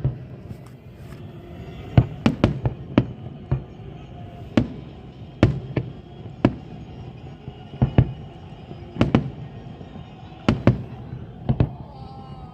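Fireworks exploding overhead: a string of sharp bangs at irregular intervals, several coming in quick clusters of two or three.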